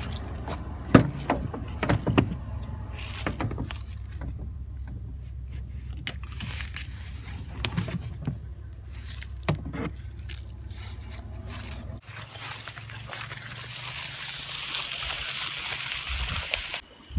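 Sharp clicks and knocks with cloth rustling from close handling, over a low steady hum that cuts off about twelve seconds in; a hissing rustle follows near the end.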